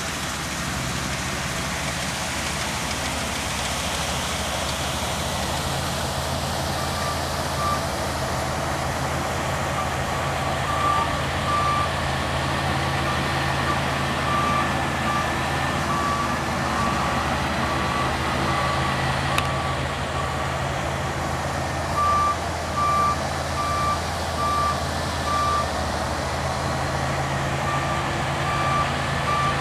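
Yanmar AW 70 V combine harvester's diesel engine running steadily. From about seven seconds in, a high electronic warning beep sounds in runs, a little more than one beep a second, like a reversing alarm.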